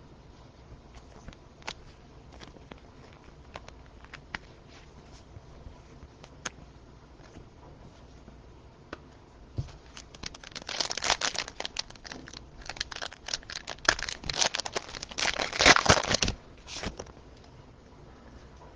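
Faint taps and clicks of trading cards being handled, then about six seconds of plastic crinkling and rustling starting about ten seconds in.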